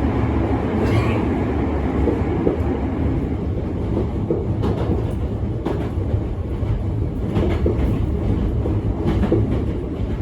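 Hankyu 1300 series electric train running, heard from inside the car: a steady low rumble of wheels on rail with irregular clacks over rail joints, which come more often in the second half. A short, falling high squeak comes about a second in.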